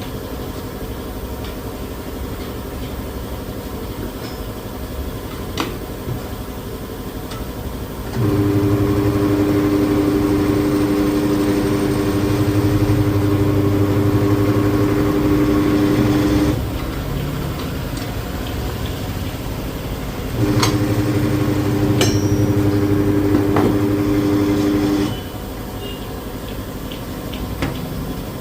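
Motor of a tyre-changer machine running in two stretches, about eight seconds and then about four and a half, as the machine works a motorcycle tyre off its rim. Its tone is steady and fixed in pitch and stops suddenly each time. A few sharp clicks and knocks are heard over a steady background hum.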